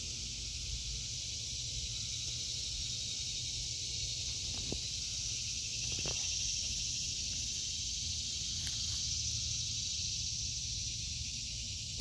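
Cicadas droning in a steady, continuous high buzz. A brief sharp knock comes at the very end.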